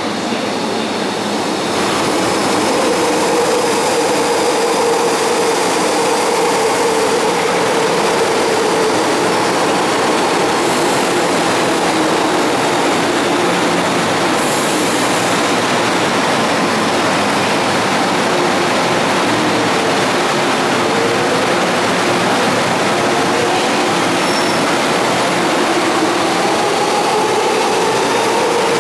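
MTR electric train coming into the underground platform with a loud rumble, standing at the platform screen doors, then pulling away. Its motor whine rises in pitch over the last several seconds as it accelerates.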